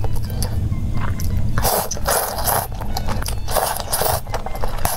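A person slurping thick round noodles from a bowl of broth, in two long wet slurps about one and a half and three and a half seconds in, with chewing between them.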